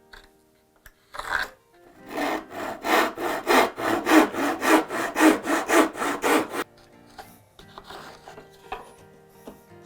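Hand saw cutting through a wooden board. There is one short stroke, then a steady run of back-and-forth strokes at about three a second for some four seconds, and then the cut stops.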